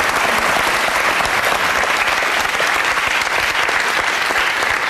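Studio audience applauding, a dense, steady clapping that holds at full strength throughout.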